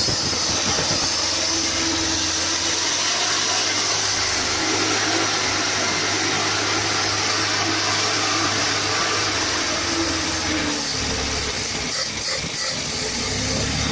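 Engine running steadily under a strong hiss, with a low hum beneath; the sound roughens briefly about eleven seconds in.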